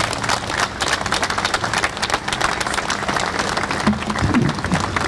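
A crowd applauding: many people clapping at once in a dense, steady patter.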